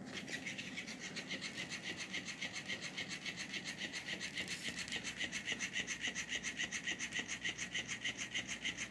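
Battery-powered robotic flopping trout cat toy starting up and flapping its tail on carpet: the plastic tail joints click and rasp in a fast, even rhythm of several strokes a second. Its joints are noisy, noisy enough that the owner plans to grease them with Vaseline.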